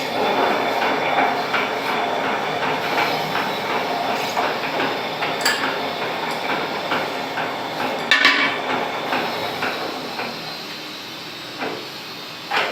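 Lathe turning and facing a car cylinder head: a steady machining noise with irregular metallic ticks and clinks, and a louder clatter about eight seconds in.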